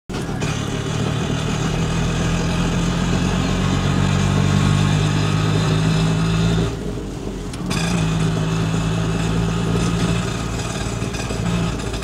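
Remote-control toy auto rickshaw driving, its small electric drive motor and gears running with a steady hum. It drops off briefly about seven seconds in, then picks up again.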